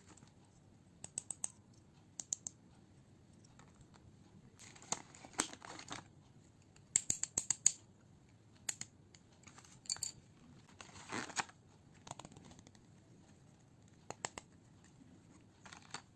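Stationery items and their packaging being handled: scattered small clicks and taps with brief bursts of crinkling and rustling, the busiest stretch in the middle.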